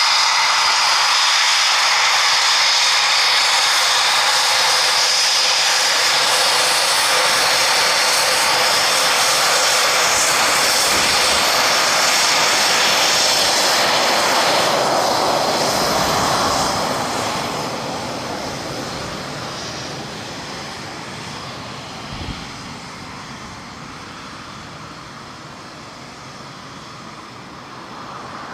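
Eurofighter Typhoon's twin EJ200 turbofan engines running at taxi power on the ground: a loud, steady high whine over a rushing hiss. About halfway through, the sound fades as the jet moves away, then it builds a little again near the end.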